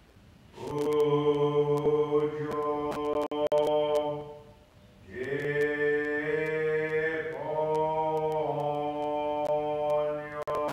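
A man's voice chanting a Buddhist sutra in the Japanese Jodo Shinshu style, holding long, slow notes that step up and down in pitch. There is a short pause for breath about four seconds in.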